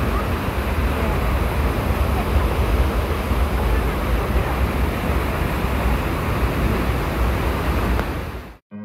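Waterfall pouring into a rocky river pool, a steady rushing roar with a heavy low rumble, cut off abruptly near the end.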